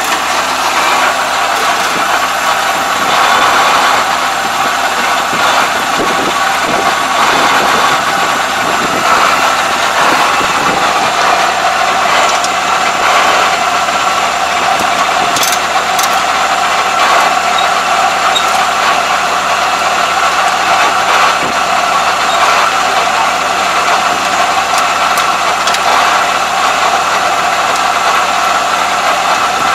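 Rice combine harvester's engine running steadily at a constant speed.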